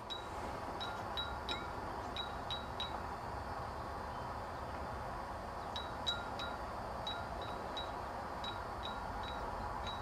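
Faint metallic tinkling, a dozen or so small high pings in two irregular runs, the first about a second in and the second from about six seconds on, over a low steady outdoor hiss.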